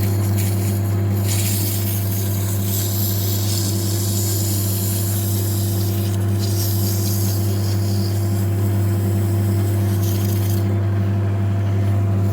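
Lathe running with a steady hum while emery cloth rubs against the spinning piston's machined combustion bowl, a hiss that starts about a second in and stops near the end, polishing the bowl surface and taking off the sharp corners.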